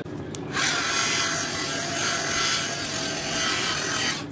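Electric machine polisher running with a foam pad on painted motorcycle bodywork: a steady motor whir with the pad rubbing on the paint, starting about half a second in and stopping just before the end.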